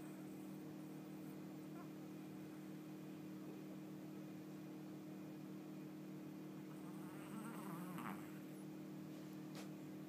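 A steady low buzzing hum. About seven seconds in comes a brief wavering, whine-like sound, and a single click follows near the end.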